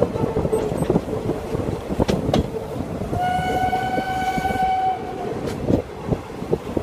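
A steam locomotive's whistle blows one steady note for about two seconds, starting about three seconds in. Under it the train's wheels rumble and click over the rails, heard from one of the carriages.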